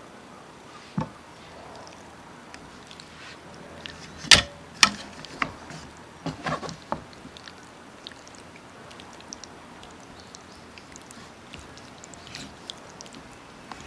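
A few sharp knocks and clicks over a steady hiss. The two loudest come about half a second apart, about four seconds in, followed by a short run of smaller knocks, then only scattered faint ticks.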